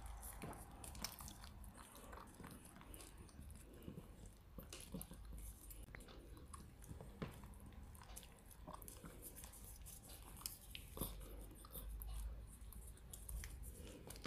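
A poodle licking paste from a squeeze sachet held to its mouth: faint, irregular wet licks and lip smacks.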